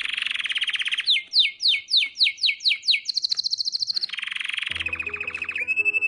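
Domestic canary singing: a fast rolling trill, then a run of about eight sharply falling notes at roughly four a second, then a high, very rapid trill and another rolling trill.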